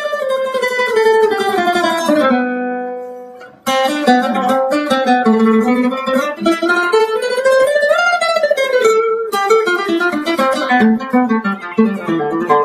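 Music: a plucked-string melody, guitar-like, stepping down over the first two seconds, fading out briefly about three seconds in, then picking up again with a line that rises and falls.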